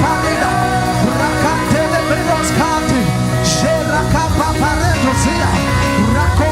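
Live church worship music: sustained keyboard chords with voices singing and praying over it.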